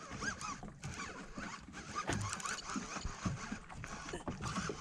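Fishing reel being cranked to wind in a hooked fish, a low whir with scattered small clicks.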